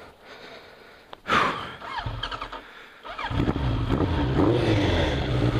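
A sharp gasp of breath, then about three seconds in the Suzuki Bandit 1200's inline-four engine comes in and runs at a steady low speed.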